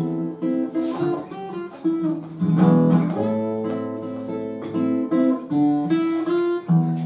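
Acoustic guitar playing the instrumental introduction to a song: chords picked and strummed, with bass notes under them and the notes changing every fraction of a second.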